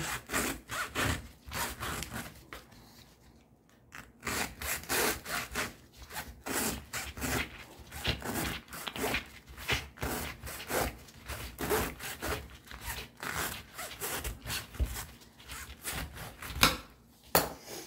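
Knife blade sawing back and forth through the oily pleated paper media of a used oil filter, cutting it free of the end cap: a steady run of rasping strokes, two or three a second, with a short pause about three seconds in and a couple of sharper clicks near the end.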